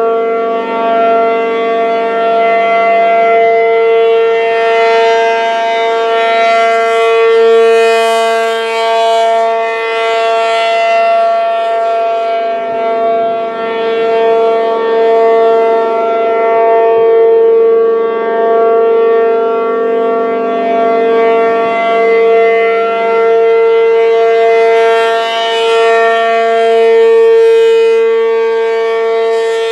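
P-50 outdoor warning siren stuck on, sounding a steady, unbroken tone that swells and fades in loudness every couple of seconds. It is running continuously in a malfunction that is assumed to come from a welded control relay.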